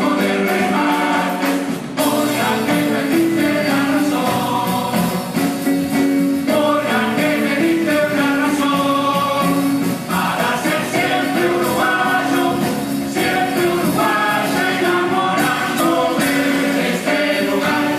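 Uruguayan carnival murga chorus singing its farewell song (despedida) in many voices, over music.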